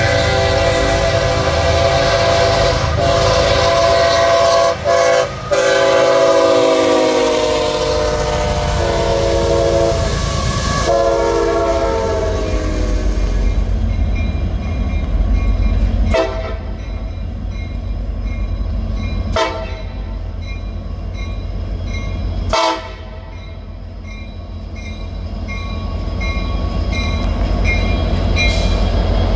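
A train's multi-chime air horn sounding, its chord dropping in pitch as it passes. Then an EMD SD70 diesel freight locomotive approaches, its engine rumble growing louder, while a bell dings steadily.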